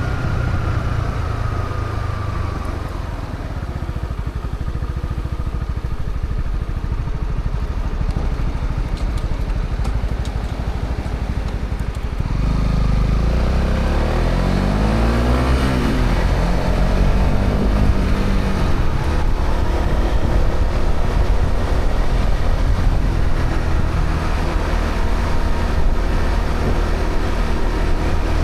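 Honda CB125R's single-cylinder 125 cc engine through its stock exhaust, heard while riding. It runs low and eases off for about the first twelve seconds, then pulls away with the revs rising about halfway through and settles into a steady cruise.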